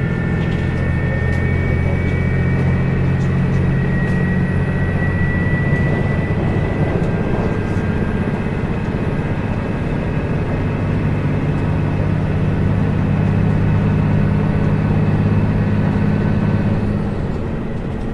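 Diesel engine running steadily, a continuous low hum with little change in speed.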